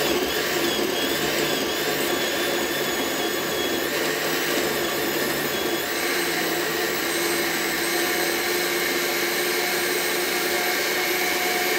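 Countertop blender with a glass jar running at speed, puréeing tomatoes, peppers and onions into a smooth liquid: a loud, steady motor whine that is switched on and shut off abruptly.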